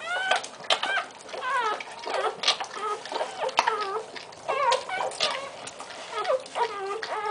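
Newborn English Bull Terrier puppies crying: many short, arching squeaks, several a second and often overlapping.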